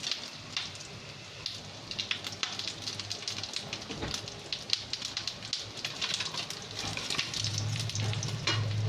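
Dried fish (daing) frying in hot oil in a wok, the oil sizzling with frequent sharp crackling pops. A low steady hum comes in near the end.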